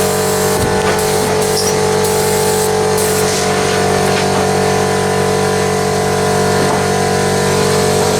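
Air compressor running steadily with a constant machine hum, with several short bursts of high hiss in the first few seconds.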